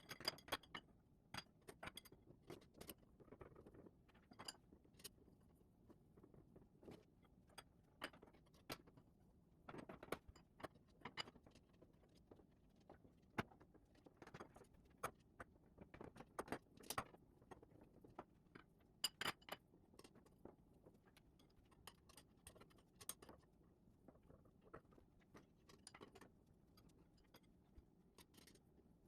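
Light, irregular clicks and clatters of trellis parts being handled and fitted together during assembly, scattered through the stretch with a few louder knocks.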